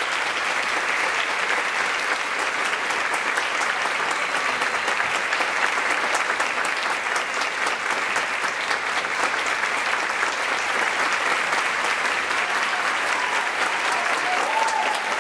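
Audience applauding steadily, a dense, even clapping that greets a soloist coming on stage.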